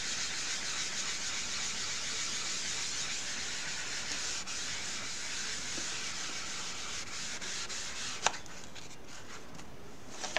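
A moistened board eraser scrubbing a wet chalk design off a Chalk Couture board surface: a steady, scratchy rubbing that eases slightly near the end, with a single sharp tick about eight seconds in.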